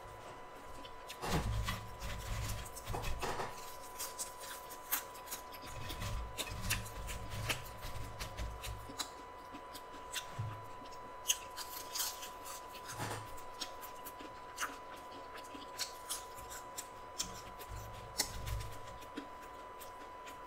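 Close-up eating sounds: a person chewing french fries, with mouth clicks and smacks and the rustle of fingers handling food, a ketchup packet being squeezed near the start. A faint steady tone sits underneath.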